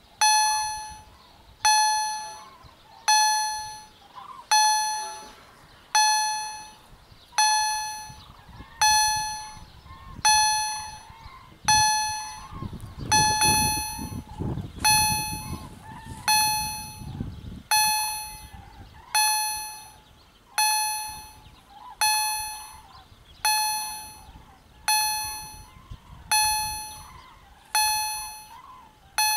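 EHL-S10 electronic level-crossing bell sounding its bell-modulated warning: a single ringing stroke about every one and a half seconds, each struck sharply and dying away. This warns that the barriers are down for a train. Around the middle a low rumble swells and fades beneath the strokes.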